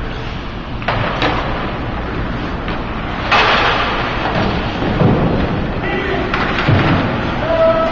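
Hockey play in an echoing rink: knocks and low thuds of the puck, sticks and players hitting the boards, with a loud scraping hiss about three seconds in, over steady arena noise.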